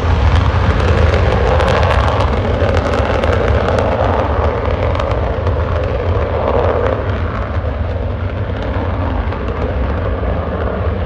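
A B-1B Lancer's four afterburning turbofan engines at takeoff power: a loud, deep rumble with a ragged crackle, the crackle thickest in the first few seconds. The noise eases a little after the bomber lifts off and climbs away.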